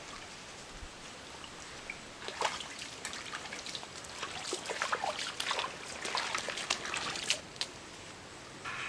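Shallow creek water trickling, with a run of small splashes and drips through the middle few seconds.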